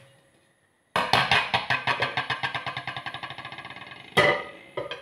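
A glass saucepan lid with a metal rim wobbling to rest on a hard surface: a fast rattle that speeds up and fades over about three seconds while the rim rings. Then a single sharp metal clank of cookware near the end.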